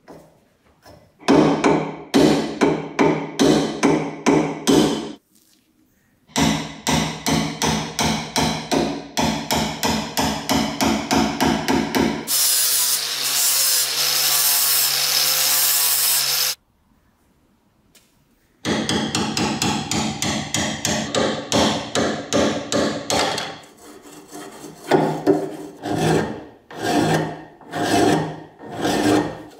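A hand file rasps across rusty iron in quick runs of about three strokes a second. In the middle an angle grinder runs for about four seconds against the metal. Near the end come slower, separate file strokes.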